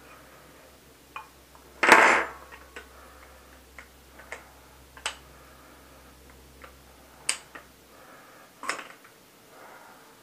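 Scattered light clicks and taps of small metal parts as an AR-15 lower receiver is handled and taken apart by hand, with one louder clatter about two seconds in.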